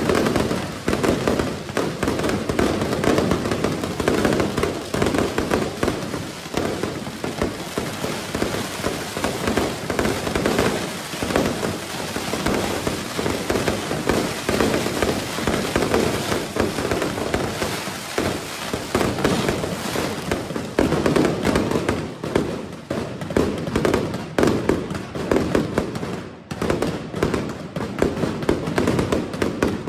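A fireworks display firing a dense, continuous barrage of cracks and bangs from aerial shells and ground fountains, with a brief lull near the end.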